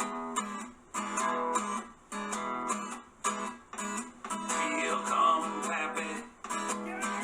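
Guitar music: strummed chords in a rhythmic, stop-start pattern.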